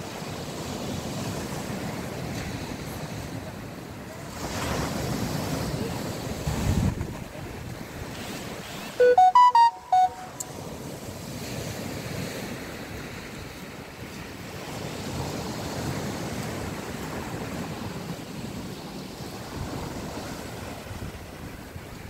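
Small waves washing onto a sandy shore, with wind on the microphone; the surf swells about four seconds in and again after fifteen seconds. About nine seconds in, a loud, brief pitched sound of a few stepped notes cuts in for about a second.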